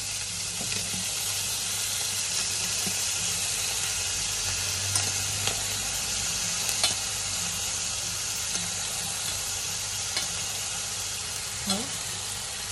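Hot frying pan sizzling steadily as boiled, steaming instant noodles are tipped from a steel pot onto frying bacon, ham and carrot. A few light clicks come through the sizzle.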